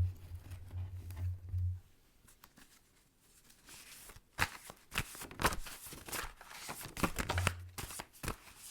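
Reading cards being handled and shuffled: dry rustling and light taps, coming thick from about four seconds in, over a faint low hum.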